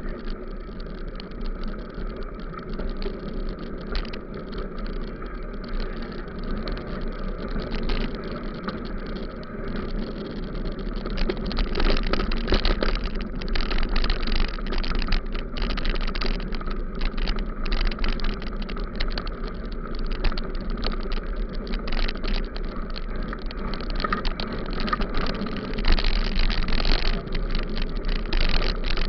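Riding a bicycle over a rough dirt road: a constant crackle of tyres on grit and quick rattling jolts, with wind rumble on the microphone. It gets a little louder about twelve seconds in.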